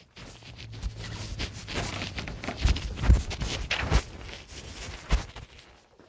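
Handling noise from a phone carried in a pocket: clothing rustling over the microphone, with a few muffled thumps of footsteps.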